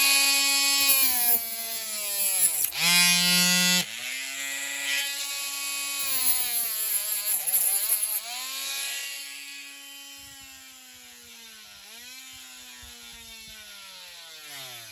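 A small hand-held power tool motor whining at high speed on a diecast metal model, its pitch dropping sharply several times as it bites under load and then recovering. It grows quieter in the second half and spins down to a stop right at the end.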